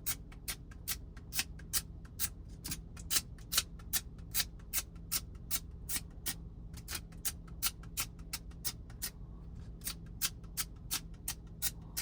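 Adhesive dust remover sticker tapped again and again on a phone's glass screen: a run of light, sharp ticks, about three to four a second, a little irregular.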